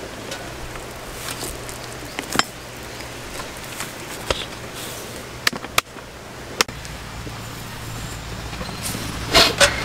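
Hard plastic cooler being opened and a glass beer bottle lifted out from among the contents, giving a few sharp separate clicks and knocks of plastic and glass over a low steady hum.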